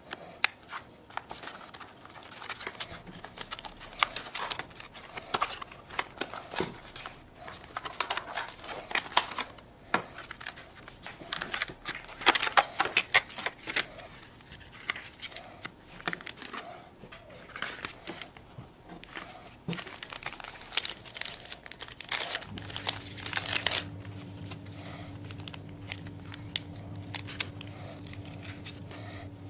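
Paper and foil packaging crinkling and rustling in the hands, with sachets torn open; irregular crisp crackles, busiest about halfway through. A steady low hum sets in about two-thirds of the way through.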